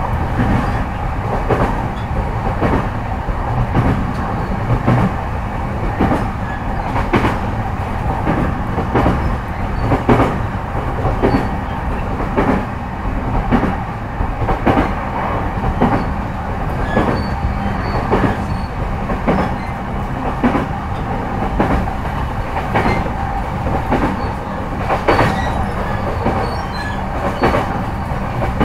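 Interior running sound of a JR East E233-5000 series commuter train's motor car at steady speed: a steady hum of the running gear, with the wheels clicking over rail joints in an even rhythm.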